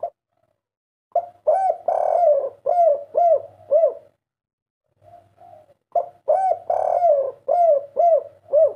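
Spotted dove cooing in two phrases about five seconds apart, each a run of about six short arched coos with a longer coo near the middle: the three-'kuk' song that bird keepers call derkukuk 3.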